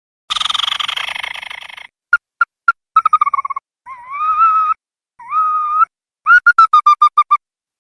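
Ruddy-breasted crake calling: a harsh rattle that fades over about a second and a half, a few sharp single notes, two drawn-out whistled notes that rise, then a quick run of about eight clipped notes near the end.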